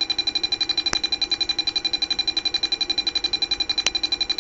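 Small speaker driven by an Arduino Mega2560 playing a rapid train of short electronic beeps, about a dozen a second, with a high tone on top. Two sharp clicks, about a second in and near the end.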